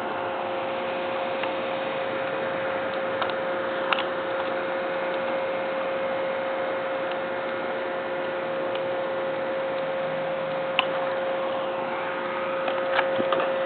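Steady hiss with a constant mid-pitched hum, and a few faint, scattered clicks.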